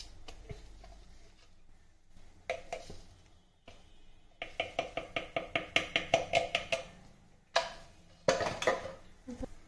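Metal spoon clinking against a metal pressure cooker in a quick run of ringing taps, about eight a second for a couple of seconds, then a few louder knocks.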